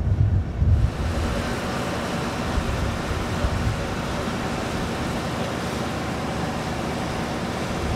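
Wind buffeting the microphone for about the first second, then the steady, even rush of a jet fighter's engine.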